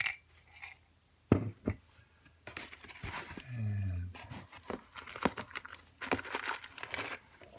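Packaging rustling and crinkling as it is torn open and unwrapped by hand, with a sharp knock about a second in.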